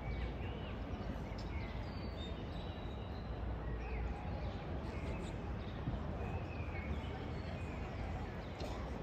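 Outdoor ambience: a steady low background rumble, with small birds chirping in short calls scattered throughout.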